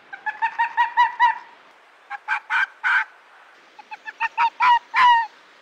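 Waterfowl honking: three runs of short, nasal, pitched honks, about four a second, with short pauses between the runs, the last honk drawn out and falling.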